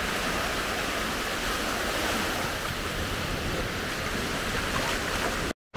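Small ocean waves washing up onto the beach, a steady hiss of surf with some wind buffeting the microphone. It cuts off suddenly near the end.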